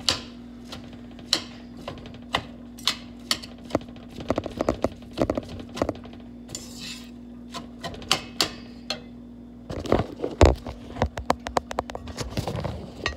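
Slotted spatula knocking and scraping against a stainless steel skillet, chopping up raw ground turkey and onion. Irregular sharp knocks come in quick flurries, with heavier thumps about ten seconds in, over a steady low hum.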